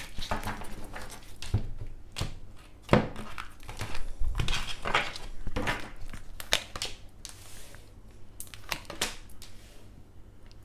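Tarot cards being shuffled by hand, a run of quick papery swishes and flicks. In the second half, cards are laid one by one onto a tabletop.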